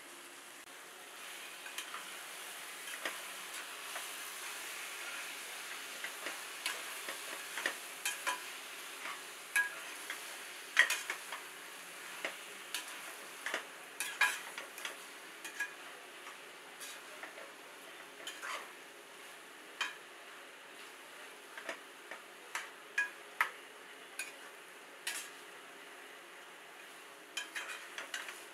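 Spatula stirring marinated chicken pieces into onion masala frying in a metal pot: a steady sizzle with irregular scraping clicks and knocks of the spatula against the pot. The sizzle swells about a second in and eases off in the second half.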